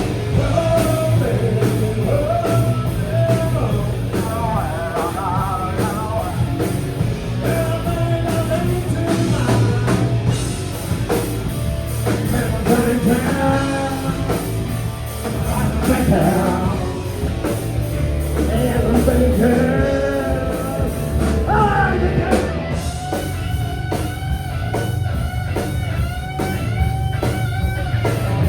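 A live rock band plays a 90s grunge song: distorted electric guitars, bass and drum kit under a sung vocal. Near the end the singing drops away and long held melodic notes, likely lead guitar, carry the song.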